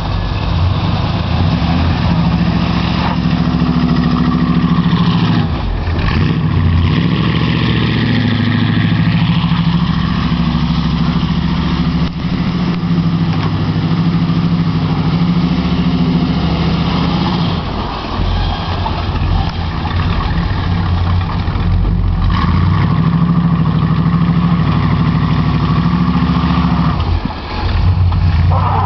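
1972 Chevrolet Chevelle's engine running loud under heavy throttle as its rear wheels spin in snow, held at high revs with several brief drops.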